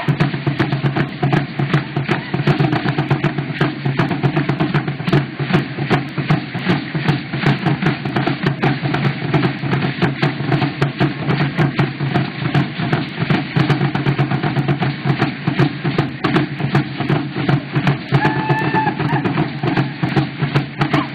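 Music with drumming at a fast, steady beat, and a short held high tone a few seconds before the end.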